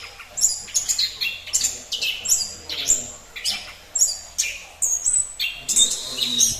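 Orange-headed thrush (anis kembang) singing a fast, continuous song of short high-pitched phrases, several each second, many sliding down in pitch.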